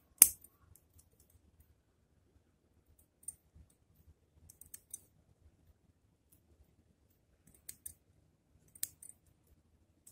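Bonsai scissors snipping twigs: one sharp, loud snip just after the start, then a handful of small clicks and snips spaced a few seconds apart.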